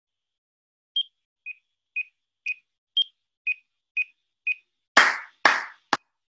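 Metronome count-off from a music recording app: eight short beeps, two a second, the first and fifth higher in pitch. Then three sharp hand claps on the beat at the same pace, clapped along to calibrate the app's playback timing.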